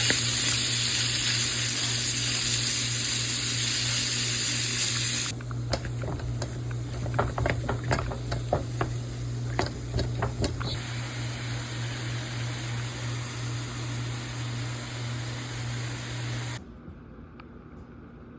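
Kitchen cooking sounds. A loud steady hiss cuts off about five seconds in. A few seconds of clinks and taps of utensils follow, and then a quieter steady hiss, all over a low electrical hum.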